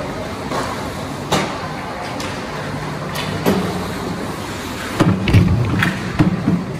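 Ice hockey play: sharp clacks and knocks of sticks and puck over a steady arena noise, with a burst of heavier knocks and low thuds about five seconds in.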